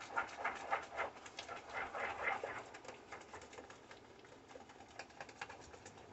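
Thick cornbread batter being stirred briskly with a spoon in a plastic tub: quick wet clicks and slaps of the spoon against the sides, several strokes a second, loudest in the first couple of seconds and lighter after.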